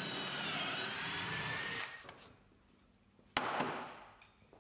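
Cordless drill turning a stepped pocket-hole bit into a ripped-down 2x4 held in a pocket-hole jig, a steady whir that stops about two seconds in. After a short silence, a single sharp knock.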